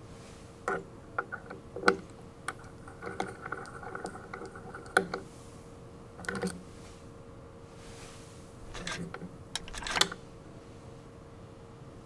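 Scattered small metallic clicks and taps from hand work on a SRAM DB8 hydraulic disc brake caliper as the pad retainer bolt is undone and the brake pads are pulled out. The sharpest clicks come about 2, 5 and 10 seconds in, with a brief light metallic rattle between 3 and 5 seconds.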